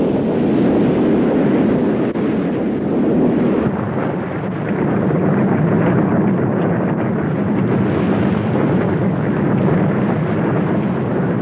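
Pyroclastic flow and its surge cloud: a loud, steady low rumble that holds level without breaks.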